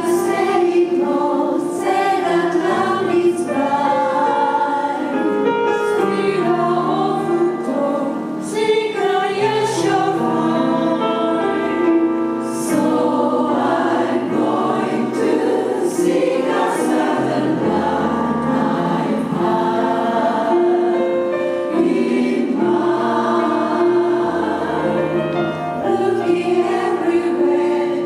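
Jazz chorus singing in close harmony, moving through long held chords.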